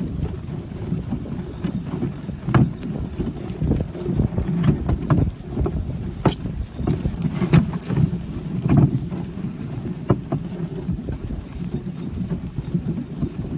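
Reindeer-drawn wooden sleigh moving over packed snow: a steady low rumble from the runners, with scattered sharp clicks and knocks now and then.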